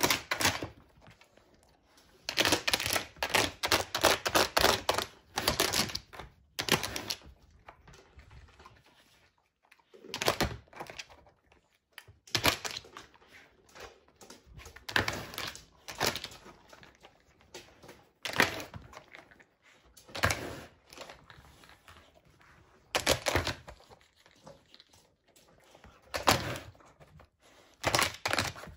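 Plastic sliding tiles of a Nina Ottosson Dog Challenge puzzle toy clicking and clacking as a dog pushes them about with its nose and paw. The clicks come in irregular bursts, thick for a few seconds early on and then every two to three seconds.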